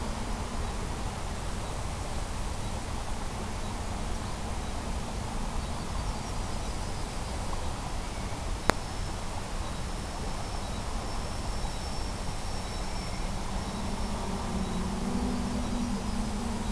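Electric motor and propeller of an FPV model aircraft, heard from the ground as a steady drone under constant hiss: faint while it is far off, growing louder near the end as it flies back in close. One sharp click a little past halfway.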